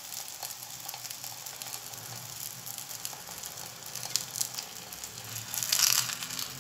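Stuffed msemen flatbread sizzling in a lightly oiled frying pan, with small crackles. Near the end a spatula slides under it to turn it, and the sizzling briefly grows louder.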